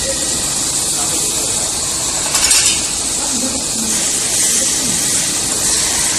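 CNC metal spinning machine running: a steady, loud hiss, with a brief louder burst about two and a half seconds in.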